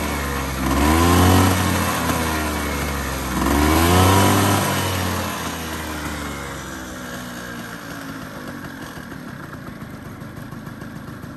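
Honda Joker 90 scooter's two-stroke single-cylinder engine given two quick throttle blips, each rising and falling in pitch, then settling to a steady idle.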